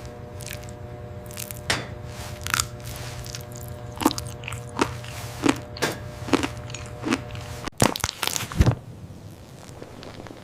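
Crisp crunching, biting-like sounds over a steady low hum. The crunches come about one every second or less. Near the end the hum cuts off and a short flurry of louder cracks follows.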